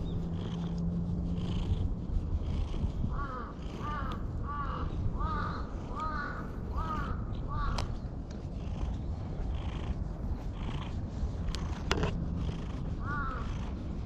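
Black stray cat purring steadily while its head is stroked. A crow caws in a quick run of about eight calls a few seconds in, and once more near the end.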